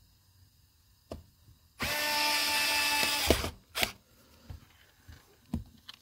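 Power screwdriver running steadily for about a second and a half, driving a screw into the robot mop's wheel assembly, then cutting off suddenly. Small clicks and knocks from handling the parts come before and after.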